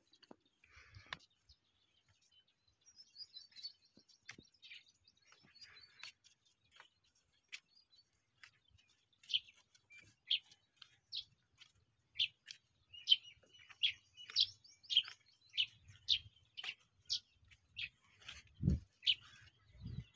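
A small bird calling with faint, short, high chirps, scattered at first and then repeated about twice a second from around the middle on. A soft low thump comes near the end.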